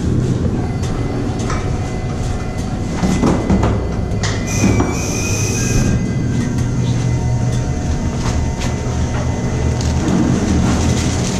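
Steady low rumble inside a steel wind-turbine tower, with frequent metallic clanks and rattles from the ladder and climbing gear. A brief high squeal comes about halfway through.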